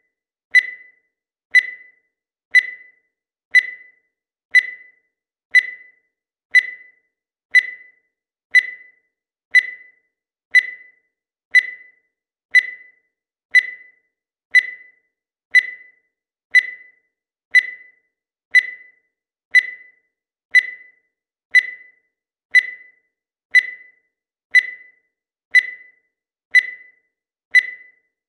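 Digital timer beeping once every second: short, high-pitched beeps that fade quickly, evenly spaced, each one marking a second as the timer counts.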